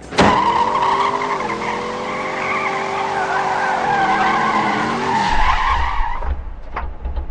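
Car engine revving hard with tires squealing. It starts abruptly, the engine note steps up about a second and a half in and drops away near the end.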